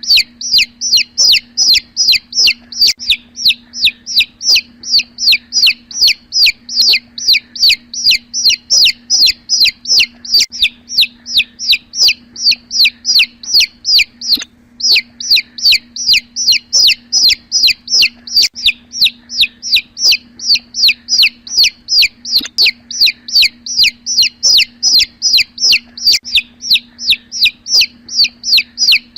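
Domestic chicken chick peeping loudly and without pause, about three to four high peeps a second, each one falling in pitch, with a brief break about halfway through. A faint steady low hum runs underneath.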